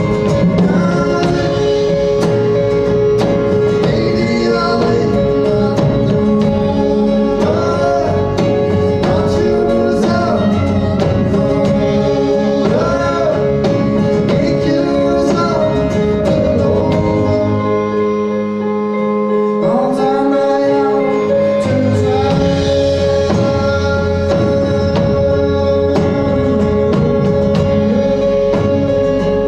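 Live band playing a song: a male voice singing over acoustic guitar, electric guitar, bass and drums, with a chord held underneath. The bass and drums drop out briefly about two-thirds of the way through, then come back in.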